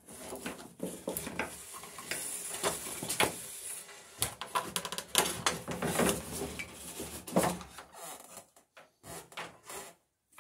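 Small pieces of scrap wood clattering and rubbing together as they are gathered up by hand, with irregular knocks of tools being handled; the clatter thins out near the end.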